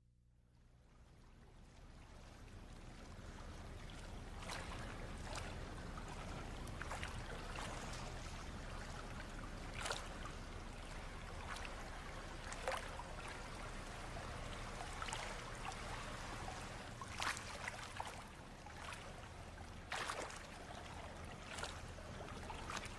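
Swimming-pool water lapping and splashing. It fades in over the first few seconds, then runs as a steady hiss over a low hum, with short sharp splashes every second or two.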